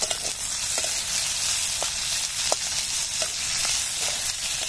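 Sliced onions, garlic and green chillies sizzling in hot oil in a karahi, stirred with a metal spatula that scrapes and clicks against the pan now and then.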